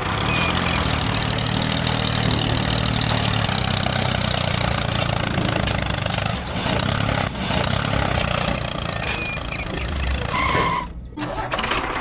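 Tractor engine running steadily with a low, even note. It briefly drops out about eleven seconds in, just after a short high tone.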